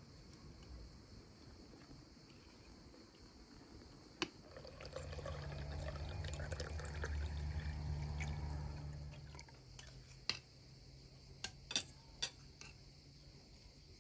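Water poured from a pitcher into a drinking glass in one steady pour lasting about five seconds, starting about four and a half seconds in. A few sharp clicks follow.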